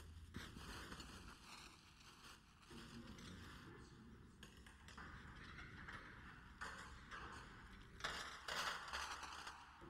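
Faint rustling and scraping with light knocks as objects are handled and set down on a paper strip, with a louder stretch of rustling about eight seconds in.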